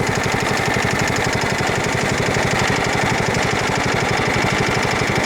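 Small riding-mower engine running steadily with an even, rapid firing pulse, at a constant speed throughout, as the Craftsman rider tows another mower.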